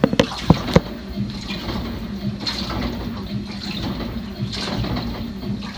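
LG WT7800 top-load washer in the wash stage of its tub clean cycle, water sloshing in the tub as it agitates, swelling about every two seconds over a steady motor hum. A few sharp knocks come in the first second.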